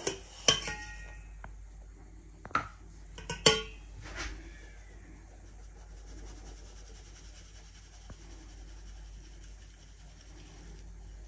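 A metal sieve and utensils clink lightly against a glass mixing bowl several times in the first few seconds, the loudest knock about three and a half seconds in. After that there is only a faint soft sound as self-rising flour is shaken through the sieve into the batter.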